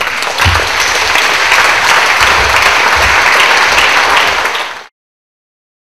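An audience applauding, swelling quickly to full loudness and then cut off abruptly about five seconds in.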